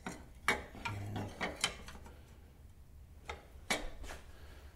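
Steel bracket clanking and tapping against the steel tractor frame as it is handled into place. A string of sharp metal knocks and clicks, several close together in the first second and a half and a few more near the end.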